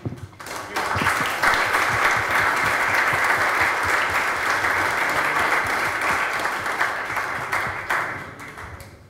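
Audience applauding: clapping that swells up within the first second, holds steady, and dies away near the end.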